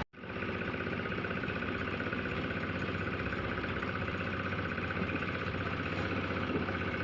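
An engine running steadily with a fast, even low throb, after a brief dropout at the very start.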